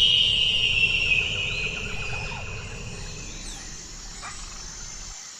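Bird-call sound effect: a high whistled note that slides slowly down in pitch and fades over several seconds, over outdoor nature ambience with insects.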